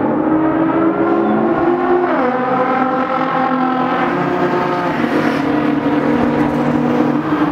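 Nissan Skyline GT-R cars accelerating hard down the straight. The engine note climbs, drops sharply at a gear change about two seconds in, then climbs again as the cars draw nearer.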